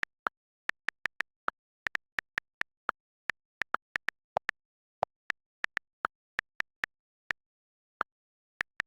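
A series of short, sharp clicks at an irregular pace, roughly three a second, with complete silence between them.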